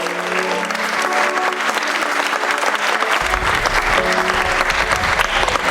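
Audience applauding, dense clapping, with music playing under it in held notes.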